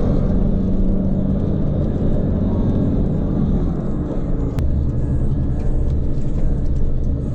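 Steady low rumble of a motor vehicle's engine, its tone dropping lower a little past halfway.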